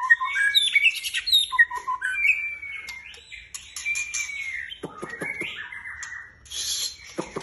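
White-rumped shama (murai batu) singing in a cage: a run of varied, rich whistled phrases that glide up and down. About five seconds in, its song gives way to a few sharp knocks and a harsh, raspy chatter.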